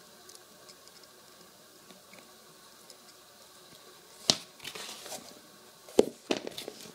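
A hand handling a white ballet flat on a wooden table: quiet at first, then a sharp knock about four seconds in followed by scratchy rubbing against the shoe, and another sharp knock about six seconds in with a few smaller clicks and rustles.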